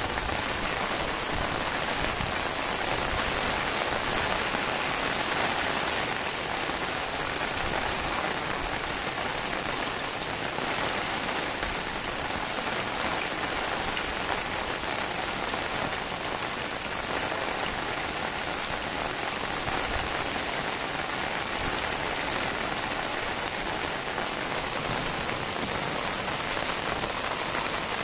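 Heavy rain falling steadily on a concrete rooftop, an even, unbroken hiss.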